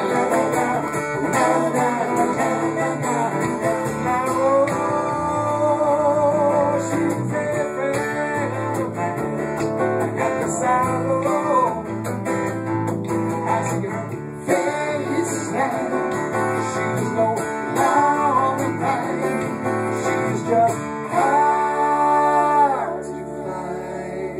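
A live band plays a rock-and-roll song, with guitar out in front. The music thins out in the last few seconds.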